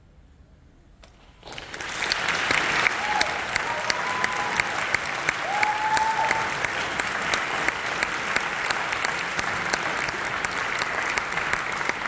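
After a brief hush, audience applause breaks out about a second and a half in and carries on steadily, with a couple of short whoops from the crowd in it.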